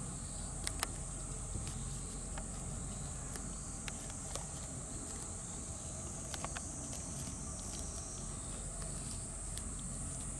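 A steady, high-pitched drone of summer insects, with scattered sharp clicks and snaps as goats crop grass.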